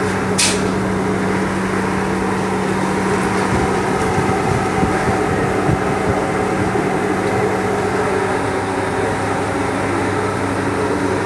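Machinery of a slanty snack production line running: a steady mechanical noise over a constant low electrical hum. A short hiss sounds about half a second in.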